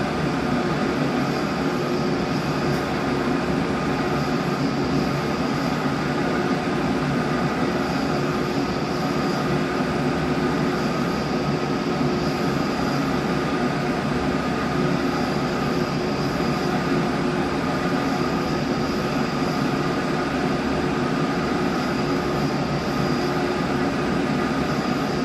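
3D Systems ProJet MJP 2500 Plus multi-jet 3D printer running with a steady whirring drone and several steady whining tones over it. It is the strange noise the machine has been making.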